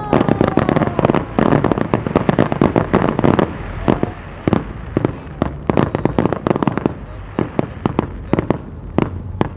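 Fireworks crackling: a dense, rapid string of sharp pops for the first few seconds, thinning to scattered pops after that.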